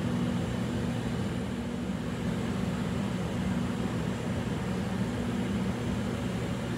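A steady, low mechanical hum with no change in pitch or loudness.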